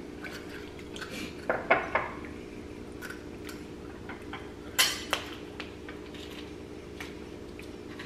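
Light clinks and clicks of a small spoon, plates and shells as balut eggs are scooped and lobster is shelled at a dinner table. A few sharper clicks come about one and a half to two seconds in and again near five seconds, over a faint low steady hum.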